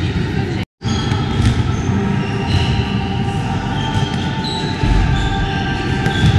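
Handballs bouncing and being thrown during a warm-up, echoing in a sports hall, with short high squeaks through it. The sound cuts out for a moment less than a second in.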